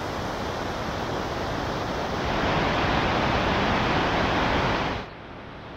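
Steady rushing noise outdoors, growing louder about two seconds in and cutting off abruptly near the end.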